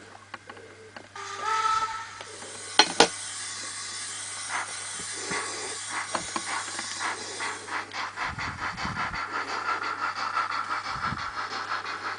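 Sound decoder of an N gauge DCC steam locomotive playing its effects through the loco's small speaker: a whistle blast about a second in, a sharp click, then steam hiss and, from about two-thirds of the way through, a steady beat of exhaust chuffs as the loco moves off.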